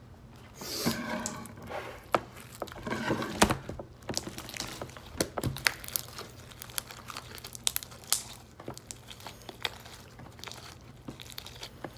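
Foam-bead slime being squished and stretched by hand: an irregular run of sticky clicks, pops and crackles.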